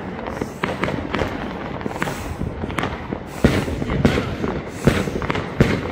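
Fireworks going off, with many overlapping bangs and crackles at irregular intervals. The loudest bangs come in the second half, and there is a brief high whistle just before the middle.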